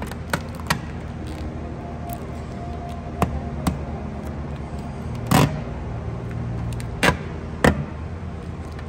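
Clear STEK DynoShield paint protection film crinkling as it is pinched and pulled back by hand from the painted panel after trimming. A few light clicks come first, then three louder short crackles from about halfway through to near the end, over a steady low hum.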